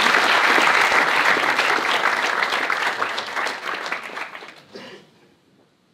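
Audience applauding, a dense clatter of many hands clapping that thins out over the last couple of seconds, with a few final claps before it dies away.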